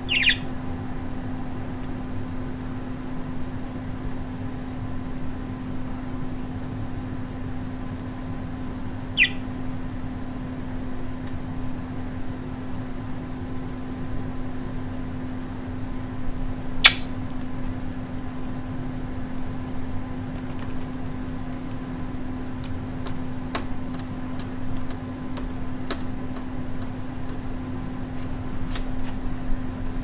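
Budgerigar perched on a computer monitor giving a short high chirp near the start and another about nine seconds in, then a sharp click and, from about twenty seconds in, a run of light ticks as it taps at the monitor, all over a steady low hum.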